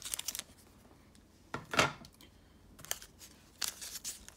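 Hard plastic graded-card slabs clicking and scraping against each other as they are handled, with rustling from a soft plastic sleeve. The sounds come in short irregular bursts, the loudest a longer scrape a little under two seconds in.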